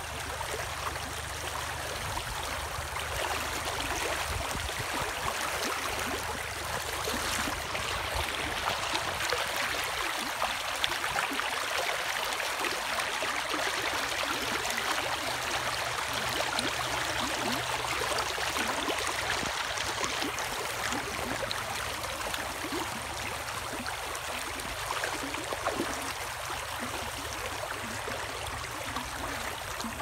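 Shallow stream running over rocks, a steady rush of flowing water.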